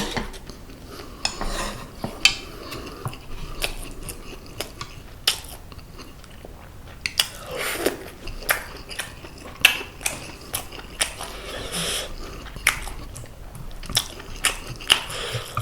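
Close-miked chewing and biting of seasoned braised half-dried pollock (kodari), with many short sharp clicks of utensils against a dish.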